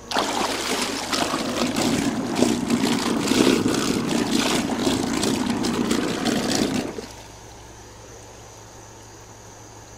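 Old 12-volt electric trolling motors running submerged in a tub of water, their propellers churning and splashing it. The churning starts abruptly and cuts off suddenly about seven seconds in.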